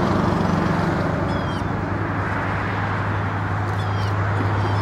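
A steady low hum under an even rushing background noise, with a bird giving a few short, high chirping calls, about two seconds apart.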